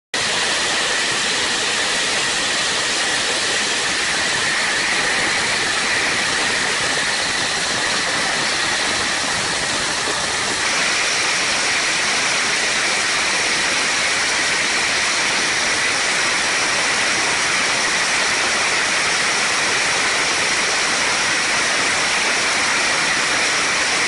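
Steady loud rush of jet engine and airflow noise, picked up by a camera mounted under a military jet carrying bombs, through the takeoff run and in flight. The hiss shifts higher about ten seconds in.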